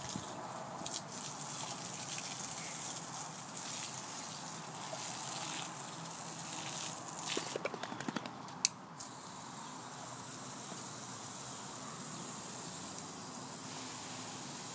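Water spraying and splashing, uneven for the first half, with a quick run of clicks and one sharp click about eight and a half seconds in, then settling into a steady hiss.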